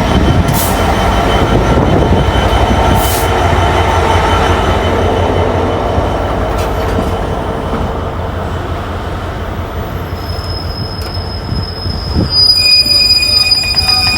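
Train rolling along the rails with a loud steady rumble. About ten seconds in, a high-pitched wheel squeal begins, and it grows louder with several shrill tones near the end.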